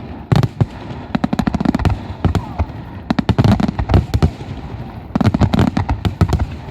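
Fireworks bursting in rapid volleys of many sharp bangs, coming in three dense clusters with short lulls between them.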